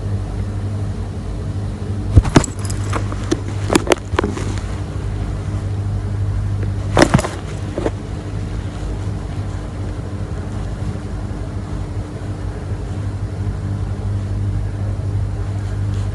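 A steady low hum, with a cluster of sharp taps and clicks about two to four seconds in and one more about seven seconds in.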